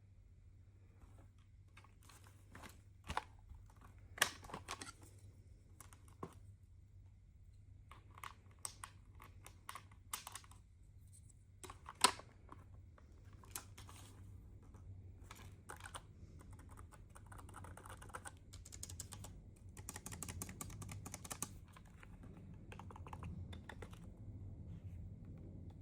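Keys of a computer keyboard being pressed in irregular, scattered clicks, a few sharper than the rest, then a denser run of clatter later on, over a faint steady low hum.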